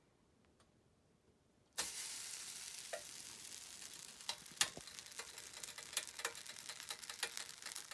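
Cooked rice landing on a hot electric griddle plate starts sizzling suddenly about two seconds in after near silence: a steady hiss with scattered crackles and pops that eases slightly as it goes on.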